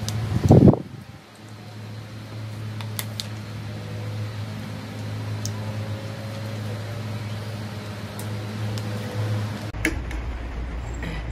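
A steady low mechanical hum runs throughout, with a few faint clicks. There is a loud low thump about half a second in.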